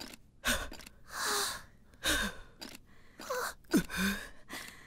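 A cartoon robot character's strained grunts and gasping breaths, several in a row, short pitch-gliding voice sounds with breathy exhales, as it struggles through sit-ups.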